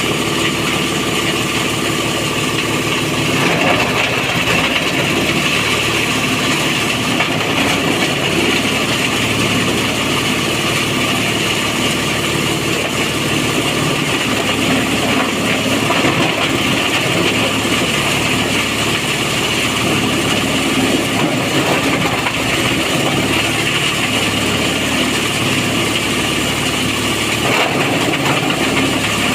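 Engine-driven chopper-grinder machine running steadily while grinding cassava stems into livestock feed.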